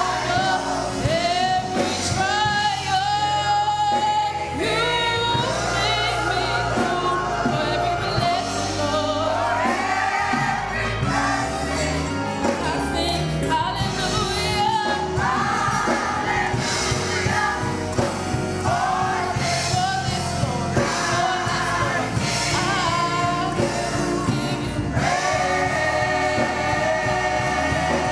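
Gospel singing with instrumental accompaniment, sung melody lines over sustained low notes, continuing without a break.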